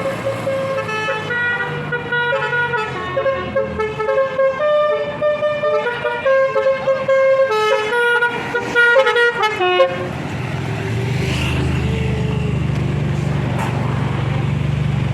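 Car-mounted basuri (telolet) multi-tone musical horn playing a quick tune of stepping notes. About ten seconds in it stops abruptly, leaving a vehicle engine running with a low, steady rumble.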